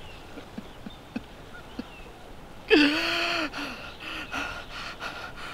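A man weeping: soft, broken sobbing breaths, then about halfway through a loud, strained cry with a gasp, trailing off into ragged breathing.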